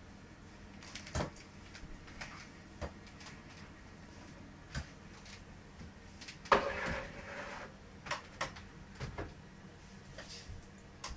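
Scattered light knocks and clicks over a faint low hum. The loudest comes about six and a half seconds in, with a brief rustle after it.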